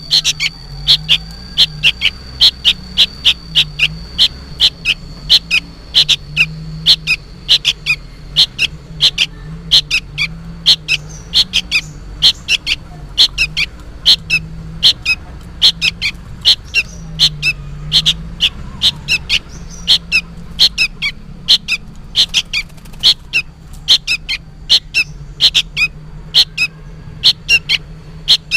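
Juvenile sooty-headed bulbul giving short, sharp chirping calls over and over, about twice a second, noisy begging calls that sound like a young bird calling for its parent.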